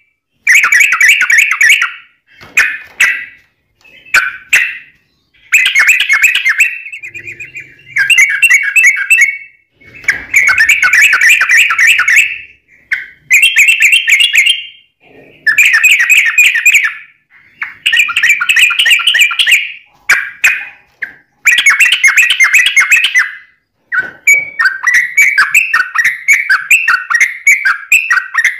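Sooty-headed bulbul (trucuk) singing: loud phrases of quick, bubbling notes, each a second or two long with short pauses between, running into a longer unbroken stretch near the end.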